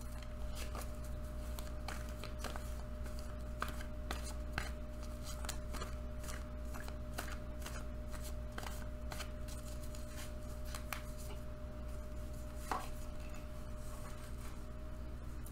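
A deck of tarot cards being shuffled by hand: many quick, light card clicks and slaps, with a few sharper ones.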